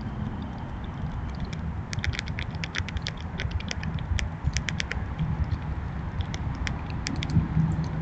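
Squirrels cracking and chewing seeds close to the microphone: rapid, irregular crisp clicks, bunched in the middle and again near the end, over a low rumble.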